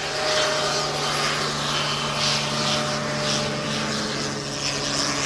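Short SC-7 Skyvan's twin turboprop engines running steadily as it rolls along the runway: a steady low hum with a propeller hiss that swells and fades about once a second.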